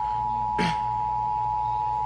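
NOAA Weather Radio warning alarm tone: a steady, single-pitch electronic tone over a low hum, sounded as a tornado warning comes round again. About half a second in there is one short, sharp noise.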